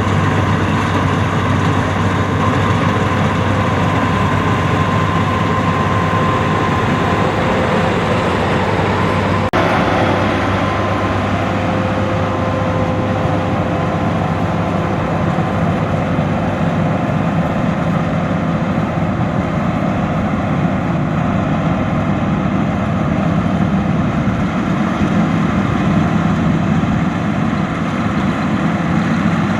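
Combine harvester's diesel engine and machinery running steadily under load, with a low hum and a faint whine. The sound shifts abruptly about ten seconds in.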